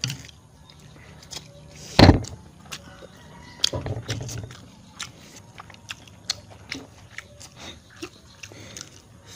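People slurping and chewing noodles with chopsticks: wet sucking and smacking mouth noises with small clicks, close to the microphone. A single loud thump about two seconds in is the loudest sound.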